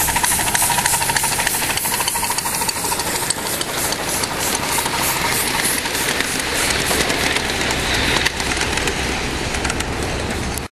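Ridable live-steam miniature locomotive running under steam: rapid, even exhaust chuffs over a steady hiss, with the rolling of the riding cars on the track. The sound stops abruptly near the end.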